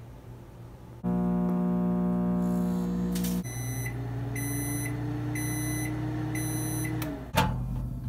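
Microwave oven running with a loud electrical hum that starts about a second in, while four short high beeps sound about a second apart. The hum cuts off near the end and a sharp click follows.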